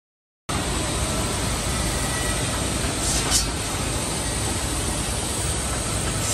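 Steady din of woodworking-factory machinery running, starting about half a second in, with a short hiss about three seconds in.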